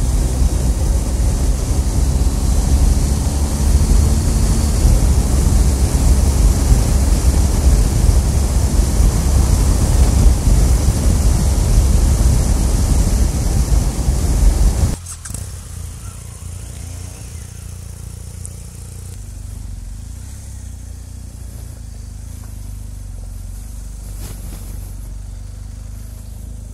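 Riding noise from a BMW R 1250 GS Adventure at speed: wind rush and buffeting on the helmet-level microphone over the engine and tyre noise. About halfway through it cuts suddenly to a much quieter, steady low engine hum as the bike rolls slowly.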